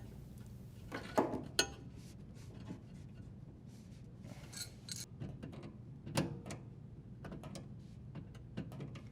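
Scattered metallic clicks and short scrapes of a hand tool working a threaded fitting: the water supply line fitting being tightened onto the dishwasher's inlet valve.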